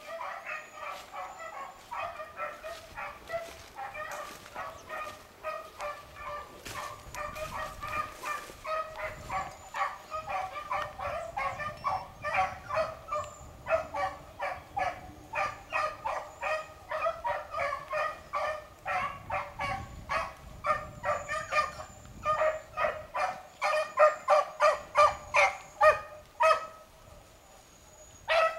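A pack of beagles baying on a running rabbit's track: many short, overlapping bays, several a second, growing louder toward the end. They stop for a couple of seconds near the end, then start again.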